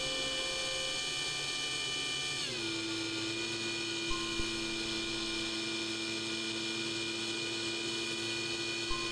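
Electric motor and propeller of a small electric RC Yak-54 model plane heard from onboard: a steady whine made of many tones, which drops in pitch about two and a half seconds in as the motor slows, then holds steady.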